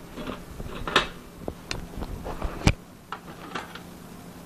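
Parts of a dismantled spring weighing machine being handled: a handful of separate clicks and knocks, the loudest a little under three seconds in.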